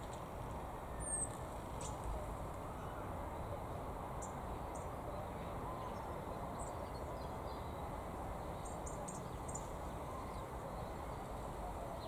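European goldfinches giving a few short, high call notes, with a quick cluster of them about three quarters of the way through, over a steady low background rumble.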